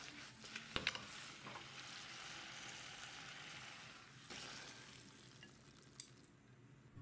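Stir-fry of pork and vegetables sizzling in a stainless pan over a portable gas burner, with a couple of sharp metal clinks about a second in. The sizzle swells again briefly a little past four seconds and fades out near the end.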